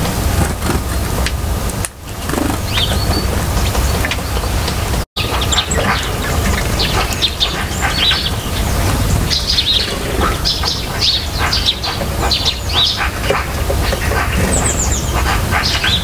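Songbirds chirping, many short overlapping calls that grow busier in the second half, over a steady low rumble. The sound drops out for an instant about five seconds in.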